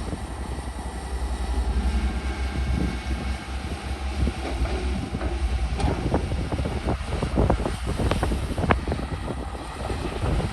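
CAT excavator's diesel engine running with a steady low rumble, with a run of sharp clanks and knocks in the second half.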